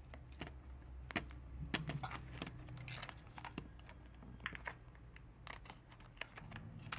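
Protective plastic film being peeled off an iPod Touch's screen and its clear plastic tray handled by fingers: a faint, irregular scatter of small clicks and crackles.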